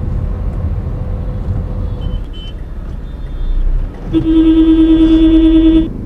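Steady rumble of a car driving, heard from inside the cabin. About four seconds in, a car horn sounds one steady blast of just under two seconds, the loudest sound here.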